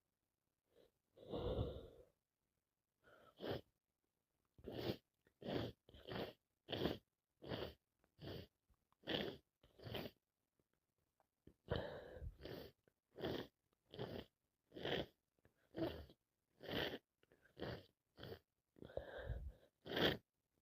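A person's short, quick breaths in a rapid, even series, about two a second, with a pause of about a second near the middle.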